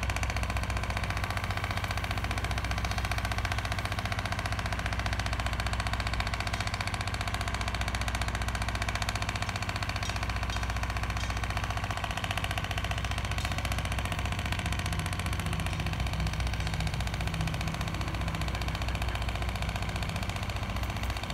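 A motor running steadily nearby: a low, even hum with a fast, regular rattle.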